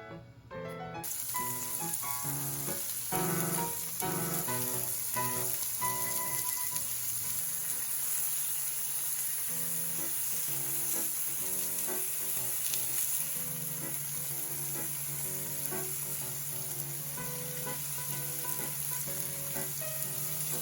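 Food sizzling steadily in a hot frying pan, the sizzle starting about a second in, with piano background music.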